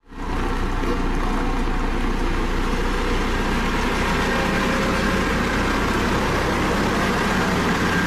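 Dynapac CC522 tandem asphalt roller's diesel engine running steadily at an unchanging speed while the roller compacts fresh asphalt.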